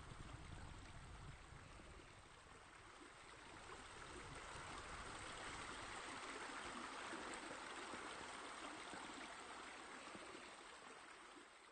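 Faint, steady running water, like a small stream or pool water feature, with a low rumble that fades out over the first two seconds.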